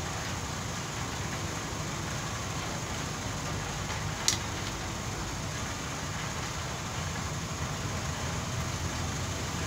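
One sharp click about four seconds in, from the steel tube and piston rod of a PCP hand pump being handled during repair, over a steady low background hum.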